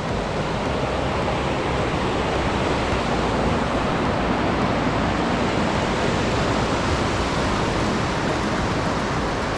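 Fast mountain creek rushing over rocks: a steady, loud rush of whitewater.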